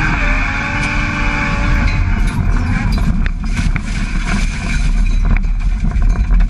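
A Toyota 1JZ inline-six in a BMW E36 drift car running loud under hard driving, its pitch rising and falling in the first couple of seconds, then a dense roar mixed with tyre noise and many short sharp cracks.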